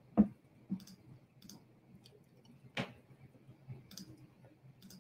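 A few scattered short clicks and light knocks, the loudest just after the start and another nearly three seconds in, with fainter ticks between.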